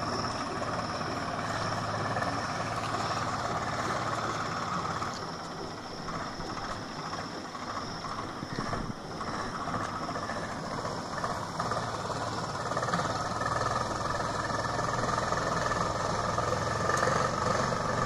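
Engine of a vehicle or machine running steadily, dipping a little in the middle and coming up again near the end.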